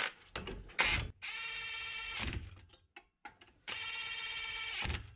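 Metabo HPT WR36DB 36V cordless 1/2-inch impact wrench hammering on a cylinder-head bolt on a low setting, in two steady bursts of about a second each, with a short pause between.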